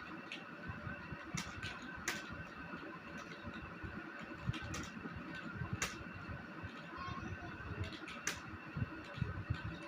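Computer keyboard keys clicking at an uneven pace as someone types, over a steady hum.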